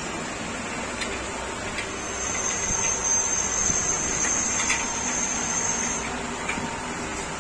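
Noodle-making machine running: its electric motor and gearbox drive roller chains and sprockets with a steady mechanical hum. A thin high whine joins for about four seconds in the middle.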